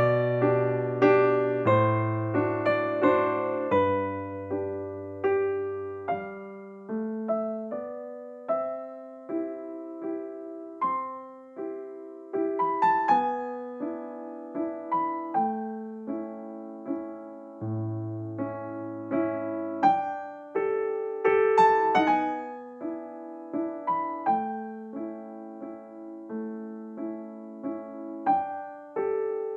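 Background piano music: a gentle melody over soft low notes, each note struck and fading away.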